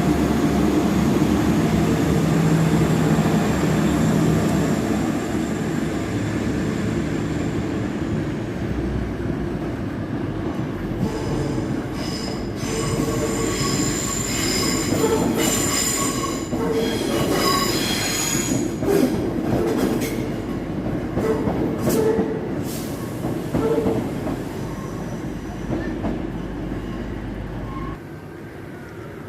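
A train running along the track, with wheels squealing in short high bursts through the middle and a few sharp clicks; the running noise drops away near the end.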